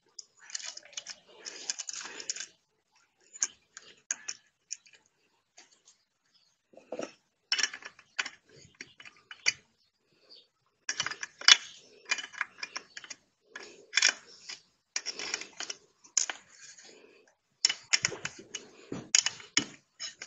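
Irregular clicking and rattling of small metal parts being handled, in bursts with quiet gaps of a second or more.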